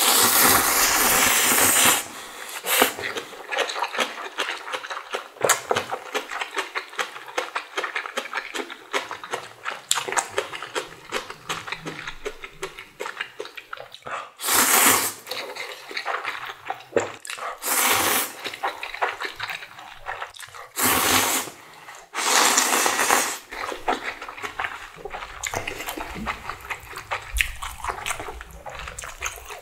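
A person slurping spicy ramen noodles in about five long pulls, with wet, clicky chewing between the slurps.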